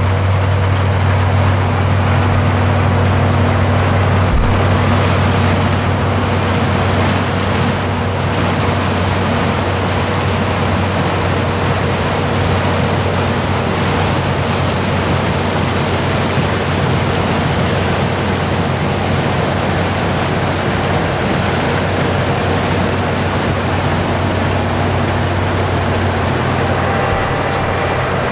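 International Harvester 1460 axial-flow combine running steadily while harvesting corn: its 436 cubic inch engine hums evenly under a broad rush of threshing machinery.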